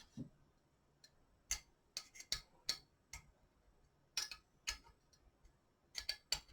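Irregular light metallic clicks and ticks, some in quick pairs, from a hex key and screws as the clamp screws of a quad rail are hand-tightened.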